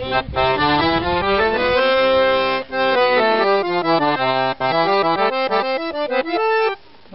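A Guerrini piano accordion playing a quick melody with the right-hand keys over held chords. The tune breaks off briefly twice and stops just before the end.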